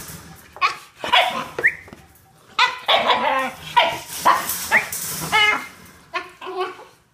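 Basenjis vocalising in a rapid run of a dozen or so short, high-pitched calls, several of them sliding upward in pitch, with a brief lull about two seconds in.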